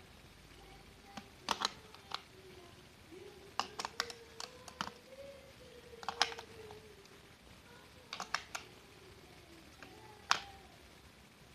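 Sharp plastic clicks and taps of AA batteries being pressed into a toy remote-control car's plastic battery compartment. They come singly and in small clusters every second or two, with the loudest snap about ten seconds in.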